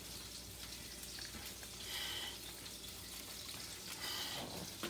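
Beef burgers sizzling in a frying pan: a steady hiss, with two short louder swells about two and four seconds in.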